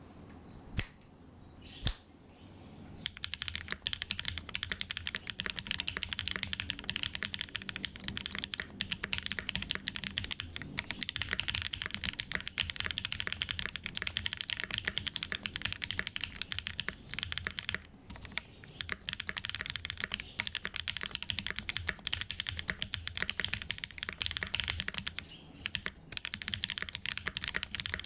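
Typing on a 7V custom mechanical keyboard with lubed AEBoards Raeds switches, an aluminium plate and GMK keycaps. Two single keystrokes come first, then continuous fast typing from about three seconds in, with a couple of brief pauses.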